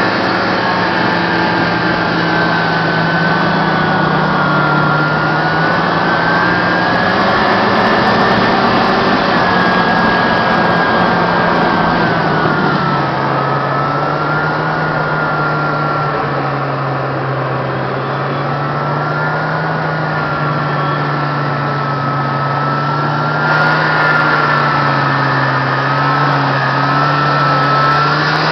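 1971 Northway MKII snowmobile's 400cc two-stroke engine running under way as the sled is ridden. It holds a steady pitch, eases down a little about halfway through, then comes up and drops again near the end.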